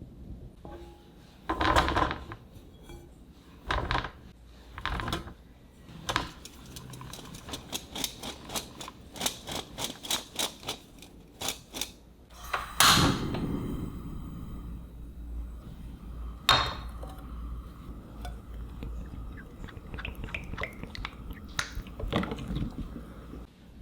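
Kitchen handling sounds: utensils and dishes knocking and clinking, with a long run of quick clicks in the middle and a louder knock about halfway through.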